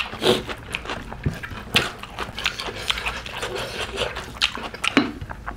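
Close-miked eating sounds: wet chewing and lip-smacking as mouthfuls of mutton curry and rice eaten by hand are chewed, with irregular short smacks and clicks a few times a second.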